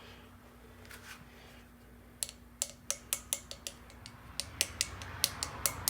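Light, sharp taps of a hammer on a new front wheel grease seal, tapping it into the brake rotor hub. The taps begin about two seconds in and quicken to three or four a second.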